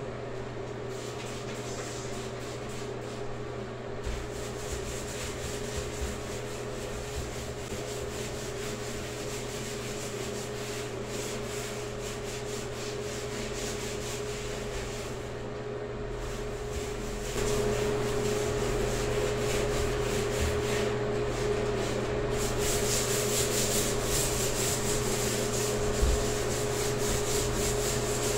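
Cloth rubbing and scrubbing on ceramic shower tile and chrome fixtures in quick repeated strokes, over a steady low hum. The scrubbing gets louder a little past halfway, and there is one sharp knock near the end.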